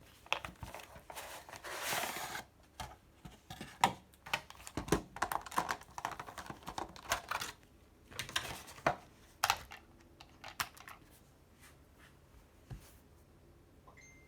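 Quick clicks and clacks of plastic mechanical keyboard switches being handled, with two stretches of rustling packaging. The clicking thins out after about eleven seconds.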